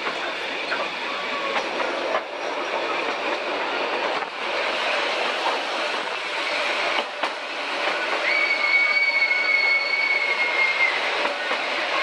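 Narrow-gauge train running, heard from an open passenger carriage as it passes through a tunnel: a steady rattling rumble of wheels on rail with a few knocks. About eight seconds in, a high steady wheel squeal sounds for about two and a half seconds.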